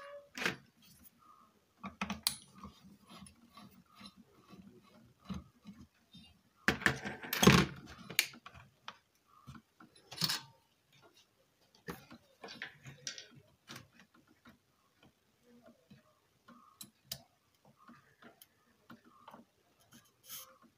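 Small clicks, taps and scrapes of hands handling a home theatre subwoofer amplifier board and its aluminium heat sink while the amplifier IC is being removed, with a few louder knocks, the loudest about seven seconds in.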